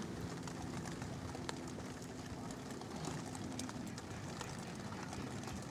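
Light rain dripping and ticking irregularly on the cart's roof and windshield, over a steady low hum.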